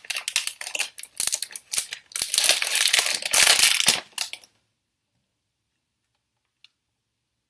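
Plastic packaging around a new speedcube being crinkled and torn open by hand, in rapid crackles that build to the loudest near the middle and cut off suddenly about four and a half seconds in.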